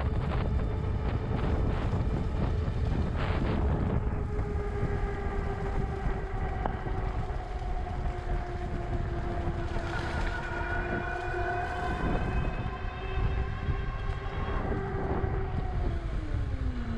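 Engwe Engine Pro 2.0 e-bike at riding speed: its electric hub motor whines steadily over wind rush and rolling rumble on the microphone. In the last second or so the whine falls in pitch as the bike slows.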